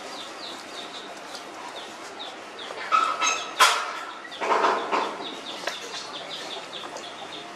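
Background chirping of birds, short repeated calls throughout, with two louder, fuller calls about three seconds in and again a second or so later.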